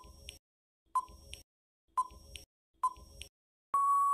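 Quiz countdown-timer sound effect: four short electronic beeps about a second apart, then a long steady beep near the end signalling that time is up.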